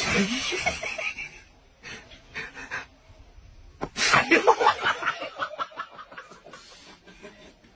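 Loud bursts of people laughing: one breaks out suddenly at the start and another about four seconds in, with a quieter gap between.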